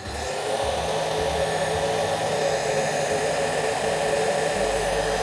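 Electric heat gun running, a steady fan whine with rushing air, blowing hot air to shrink heat-shrink tubing over soldered wire joints. It switches on at the start and builds up over the first second.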